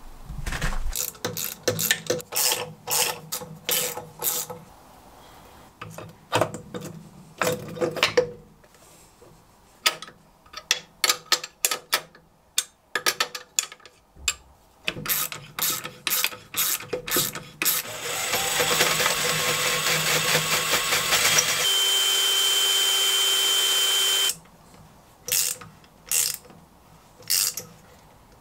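A ratchet wrench clicks in quick, uneven runs as bolts are turned on a metal lathe's leadscrew end bracket. About two-thirds of the way in, a steady mechanical whir runs for about six seconds and then stops suddenly.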